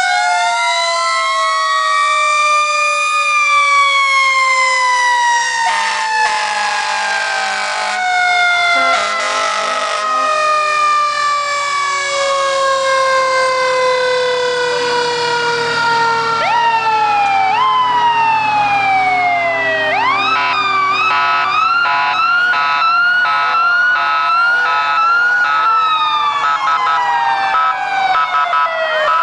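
Fire engine sirens wailing together, several long wails sliding slowly down in pitch and overlapping. About two-thirds of the way in, a siren switches to a fast yelp that runs on. Two short horn blasts come around six and nine seconds in.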